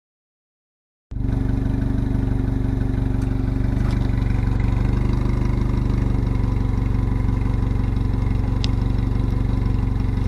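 Subaru BRZ / Toyota 86 flat-four boxer engine idling just after a cold start, heard through a JDL Ultra Quiet catted front pipe with resonator. The idle is steady and evenly pulsing and comes in abruptly about a second in.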